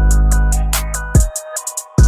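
Background electronic music with a steady beat, deep bass notes and a synth melody.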